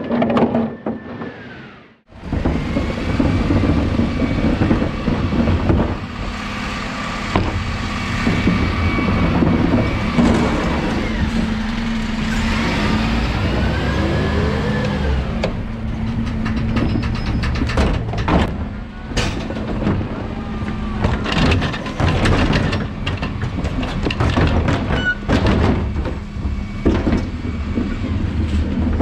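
Dennis Elite 6 refuse truck running close by, its steady engine sound starting suddenly about two seconds in, with scattered clunks and knocks of wheelie bins being handled. A whine rises and falls around the middle, typical of the truck's electric bin lift working.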